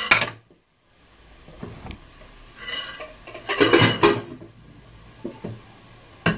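Kitchenware clinking and clattering against a frying pan in several separate bursts, the loudest around the middle, with sharp knocks at the start and near the end.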